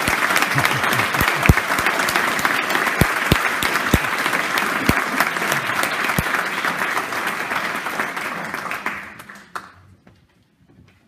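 Audience applauding, with a few close low knocks among the clapping; the applause dies away near the end.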